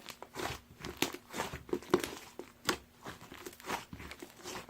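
Slime being squished and worked by hand, giving an irregular series of soft crackling clicks and pops.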